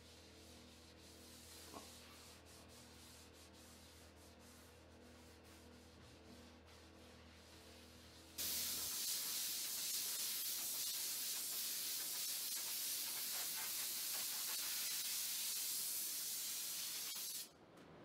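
Compressed-air blow gun hissing steadily for about nine seconds, blowing sanding dust off a freshly scuffed tabletop, then cutting off suddenly near the end. The first half is near silent, with only a faint low hum.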